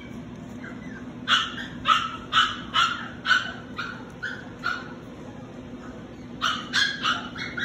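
F1b Maltipoo puppy (Maltese × toy poodle) giving short, high-pitched play yips and barks while wrestling with a littermate. About eight come in a quick run at roughly two a second, then a pause, then another quick burst near the end.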